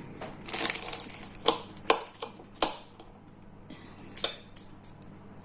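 Cutlery clinking and scraping against plates: a scraping stretch in the first second, then several separate sharp clicks.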